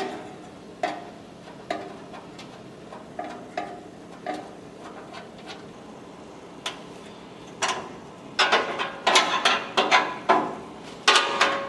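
Hand tools and loose metal body parts clicking and clanking as a car's front grille is unbolted. There are single sharp knocks every second or so at first, then quick runs of clicking about two-thirds of the way through.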